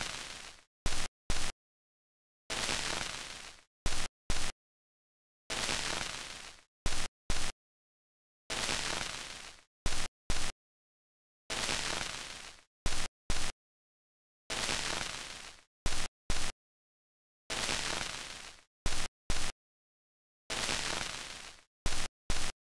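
Looped electronic noise pattern: every three seconds a hiss that fades out over about a second, followed by two short, sharp bursts, with dead silence in between.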